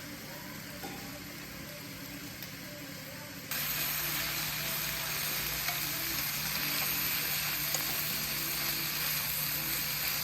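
Food frying and sizzling on a hot pan or grill, a steady hiss that starts abruptly about three and a half seconds in, with a low hum beneath; quieter background noise before that.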